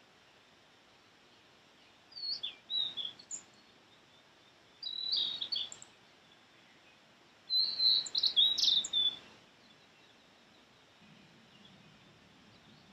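Blue-and-white flycatcher (sulingan laut) singing: three short phrases of clear, high whistled notes, about two, five and eight seconds in, the last the loudest.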